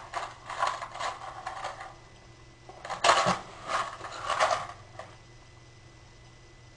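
Box of wooden kitchen matches handled in the hands: a run of short rattles and scrapes, then a louder cluster about three seconds in as a kitchen match is struck and lit.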